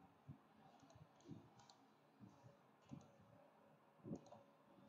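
Faint, scattered computer mouse clicks, about half a dozen, over near silence.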